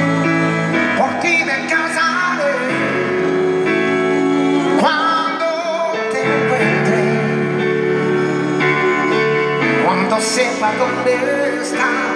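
Live concert music: a male singer holding long notes with vibrato over a full band.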